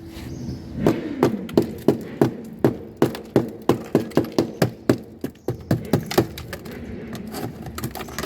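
Rapid sharp knocks, about three a second, that thin out to a few scattered ones near the end: ice being chipped and knocked loose in the iced-up freezer compartment of a Samsung refrigerator.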